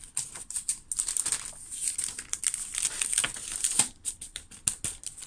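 Sheets of thin printed craft paper rustling and crinkling as a stack is handled and shuffled by hand.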